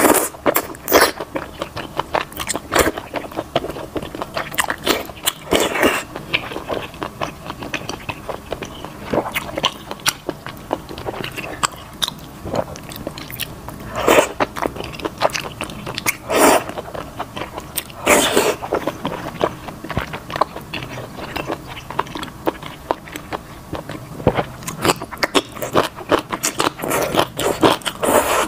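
Close-up eating sounds of a person slurping wide potato noodles from a spicy broth and chewing them, with many small wet clicks and smacks. Several longer, louder slurps stand out among the chewing.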